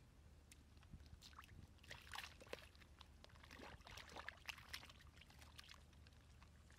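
Faint water sloshing and splashing, with a scatter of small drips and clicks that is busiest in the middle few seconds.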